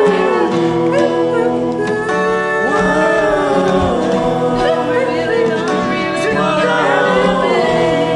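Singing over an acoustic guitar backing track, the voices holding and bending long notes.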